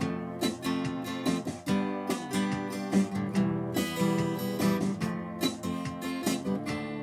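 Background music: strummed and plucked acoustic guitar.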